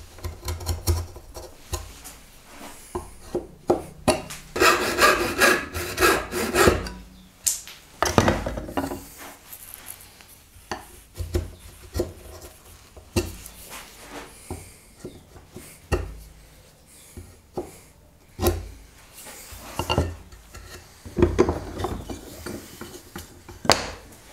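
A bench chisel paring and scraping wood by hand pressure while cleaning out a dovetail, with irregular shaving strokes and light knocks. There is a dense run of strokes about five seconds in.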